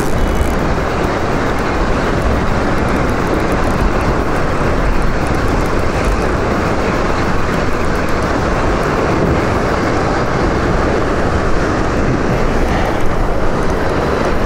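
Steady loud rushing rumble of wind buffeting the microphone, with sea surging against the rocky cliffs below.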